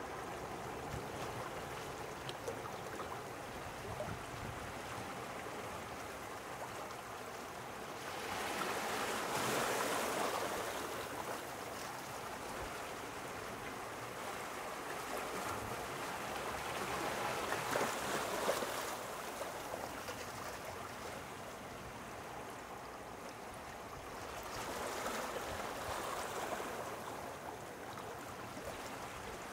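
Small sea waves washing in over a steady hiss of water, swelling and falling away about every seven to eight seconds, three times.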